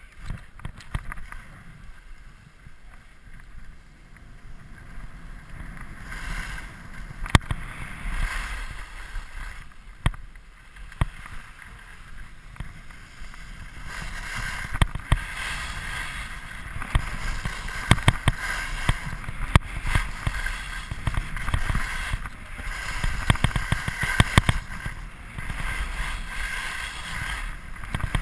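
Skis sliding and scraping over hard, tracked snow, the hiss growing louder about six seconds in and again around halfway as the skier picks up speed, with sharp knocks now and then and a low wind rumble on the microphone.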